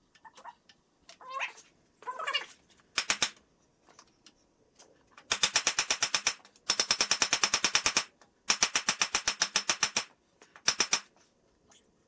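A mallet rapidly tapping the end of a cam bearing installer shaft, driving a new cam bearing into the cam bore of an LS V8 engine block. The taps come in several quick runs of about ten blows a second with short pauses between them, after a few faint squeaks and scrapes as the tool is set.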